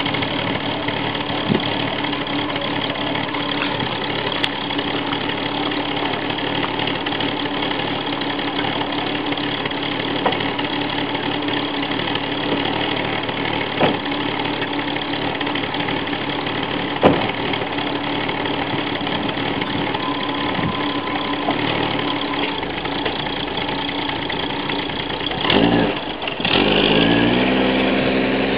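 Holden VB Commodore's engine idling steadily. Near the end the car pulls away, and the engine note rises as it accelerates.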